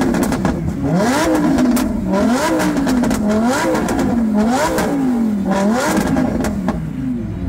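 Lamborghini supercar engine revved repeatedly while standing still, with about five quick blips of the throttle that rise and fall in pitch, then dropping back toward idle near the end.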